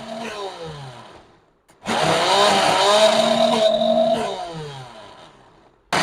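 Electric kitchen blender grinding a garlic mayonnaise sauce, run in short bursts. The motor winds down to a stop about a second in, starts up again, runs steadily for a couple of seconds and winds down again near the end.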